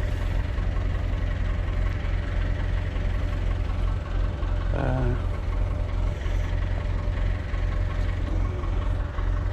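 Massey Ferguson 575 tractor's four-cylinder diesel engine running steadily at a low, even note. About halfway through there is a brief, higher-pitched sound over it.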